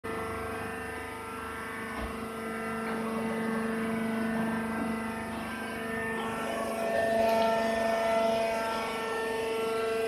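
Rice husk baling machine running, a steady mechanical hum made of several held tones, with a few of the higher tones shifting about two-thirds of the way in.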